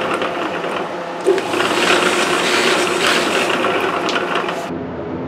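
Bench buffer motor running, its spinning cloth buffing wheel grinding against the end of a fret as the sharp overhanging ends are buffed smooth. The buffing noise stops abruptly near the end, leaving a lower steady hum.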